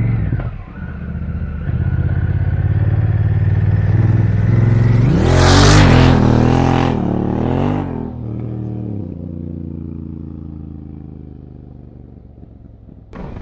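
Honda Africa Twin's parallel-twin engine accelerating hard past on a dirt track, loudest as it goes by about five to seven seconds in, with the rear tyre spraying gravel and dirt. It then shifts up through several gears and fades as the bike rides away.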